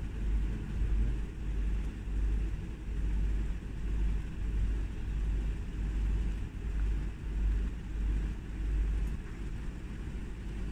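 Wind buffeting the phone's microphone: a low rumble that swells and fades about once a second, easing near the end.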